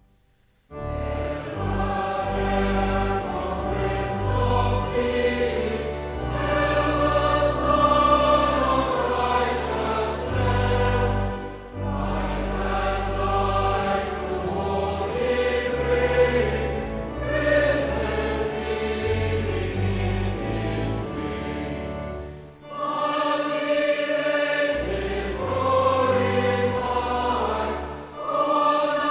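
Choir singing a slow piece in several held voices over a sustained low accompaniment. It comes in under a second after a brief silence and pauses briefly about 22 seconds in before going on.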